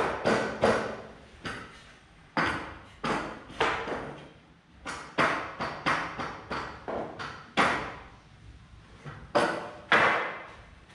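Hammer blows on wood, coming irregularly in short runs of a few strikes, each one sharp with a brief ring.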